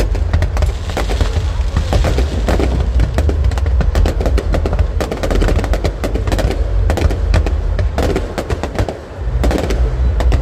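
Aerial fireworks going off in rapid succession: a dense run of sharp bangs and crackles over a deep, continuous booming rumble, easing briefly near the end.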